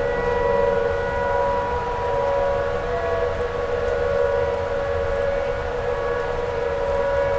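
Outdoor tornado warning siren sounding a steady, held tone, with a low rumble underneath.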